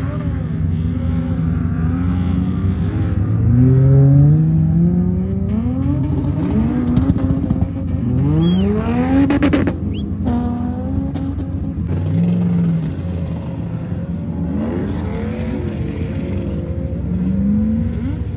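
Car engines revving hard, their pitch climbing in several rising runs over a steady rumble. The loudest run comes about four seconds in, and another climbs steeply near the middle.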